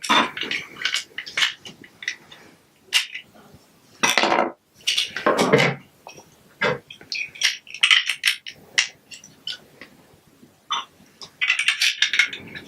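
Plastic Lego Duplo bricks clicking and clattering as they are handled and pressed together, in scattered knocks with a longer clatter about four to six seconds in and a quick run of clicks near the end.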